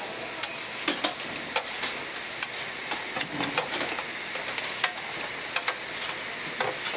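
Tteokgalbi patties of minced meat sizzling on a hot flat-top griddle: a steady frying hiss with sharp clicks now and then.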